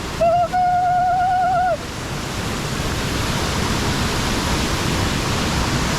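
A waterfall rushing in a steady, dense roar of water, running extremely heavy with rain from the mountains. For the first couple of seconds a person's long, held call rings out over it, then stops.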